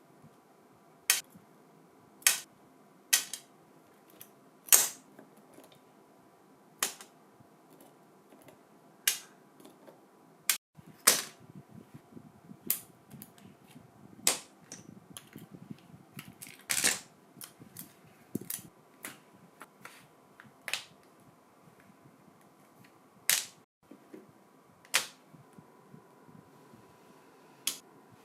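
Irregular sharp clicks and knocks of small hard parts being handled and set down during drill restoration work, some loud, over faint handling noise.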